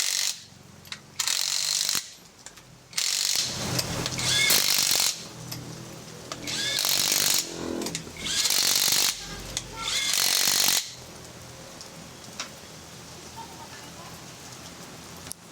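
A power tool running in five short bursts of about a second each, over a low steady hum.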